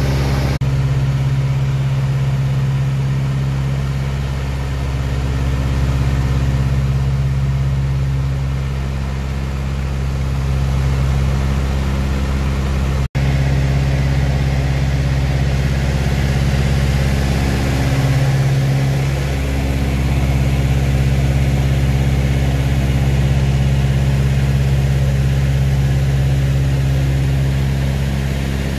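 Beechcraft 18's twin radial engines droning steadily in flight, heard from inside the cockpit, with a sudden short cut-out about halfway through.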